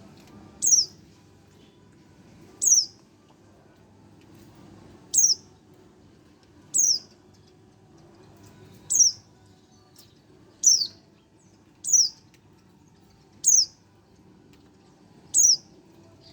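A one-month-old white-eye (pleci) giving a single sharp, high-pitched chirp again and again, each note falling steeply in pitch, nine calls at uneven intervals of about two seconds.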